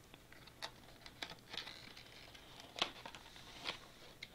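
Cardboard fan packaging being handled and shaken: scattered light clicks and rustles, with a sharper click about three seconds in, as a small loose packet of fan screws moves about inside.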